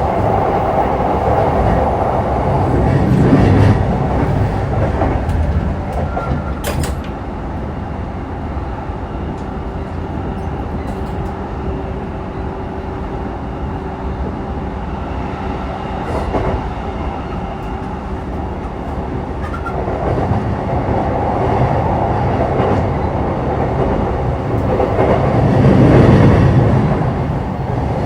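Running sound of a JR East E233 series 3000 commuter train at speed, heard from inside the car: a steady rumble of wheels on rail with some clickety-clack. The rumble swells louder twice, briefly about three seconds in and again near the end, and a single sharp click comes about six and a half seconds in.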